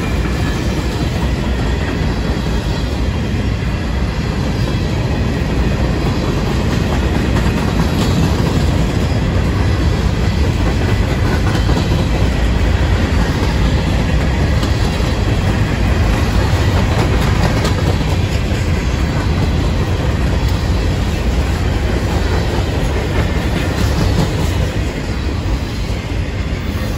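Long freight train rolling past, its cars' steel wheels running on the rails in a steady, continuous rumble that eases slightly near the end.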